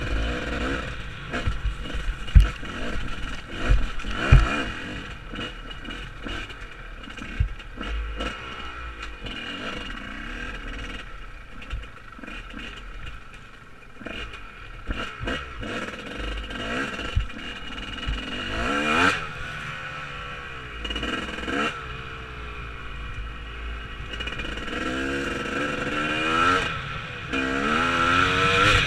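Enduro dirt bike engine heard from the rider's helmet, revving up and down as it is ridden over a rough track, climbing in pitch under throttle several times. Sharp knocks and clatter come from the bike jolting over the stony ground, loudest a few seconds in.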